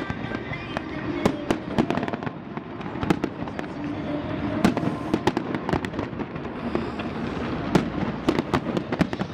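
Fireworks and firecrackers going off, with many sharp, irregular pops and bangs over a steady background crackle.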